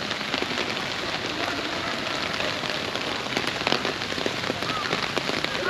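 Steady rain pattering on a clear plastic umbrella overhead, with many individual drops ticking sharply close by over an even hiss of rainfall.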